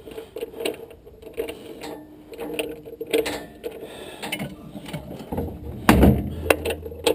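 Irregular mechanical clicking and rattling over a faint steady hum, with a heavier knock about six seconds in.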